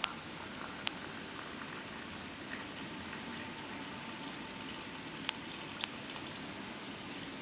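Hot sukku malli coffee (dry ginger and coriander drink) being strained and poured in a thin stream into a glass tumbler, a steady splashing fill, with a few sharp clicks.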